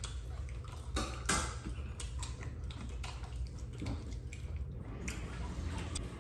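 Scattered light clicks and taps as food, wooden skewers and foil are handled while eating, over a steady low hum.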